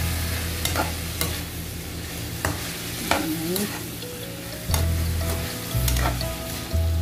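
Metal spatula stirring and scraping freshly added chayote, ground chicken and tomato around a metal wok, over a sizzle of frying. The spatula knocks against the pan several times.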